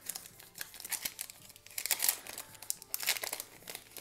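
The wrapper of a Topps Heritage baseball card pack crinkling and tearing in the hands as the pack is opened and the stack of cards pulled out, in quick irregular crackles.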